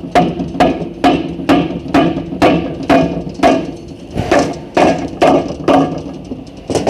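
Repeated hammer blows on the metal CVT transmission case, about two ringing strikes a second with a brief pause near the middle, knocking at a stuck part to free it.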